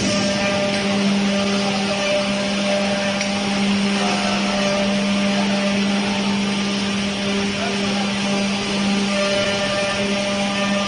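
Woodworking machinery in a door production plant running steadily: a constant motor hum over a broad whirring noise.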